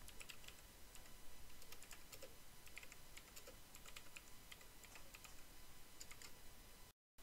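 Faint typing on a computer keyboard: a quick, irregular run of light keystrokes. It cuts to dead silence for a moment near the end.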